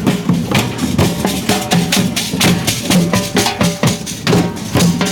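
Band music dominated by drums beating a steady, regular rhythm, with some held pitched notes over it.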